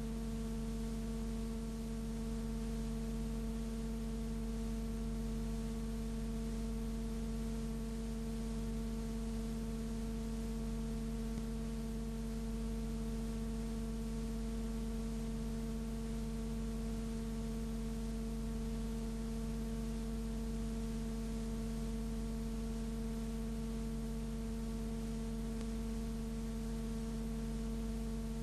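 Steady electrical hum, a low tone with several higher overtones, over a constant hiss; it does not change at all.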